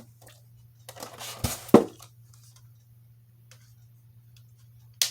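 Small parts and packaging from an RC plane kit being handled: a brief rustle, two sharp knocks about a second and a half in, and a single sharp click near the end, over a faint steady low hum.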